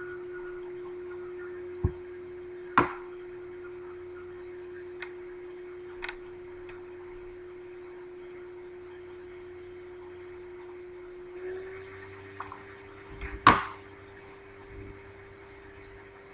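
A single steady tone, like a tuning fork or singing bowl, that steps slightly higher about 11 seconds in, with a few sharp knocks and clicks over it, the loudest about 13 seconds in.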